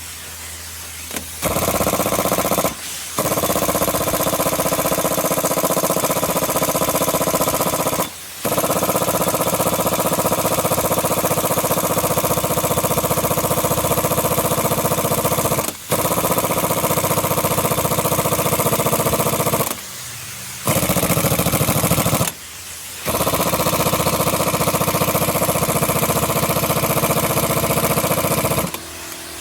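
Pneumatic air hammer running in six long bursts with brief pauses between them, hammering on a rusted, seized suspension part to break the corrosion free.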